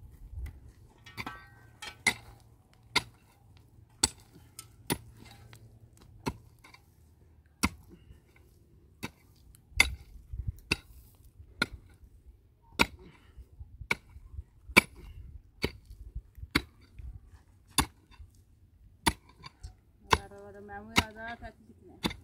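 A hand tool striking building material in sharp, uneven knocks, about one a second, during house construction work.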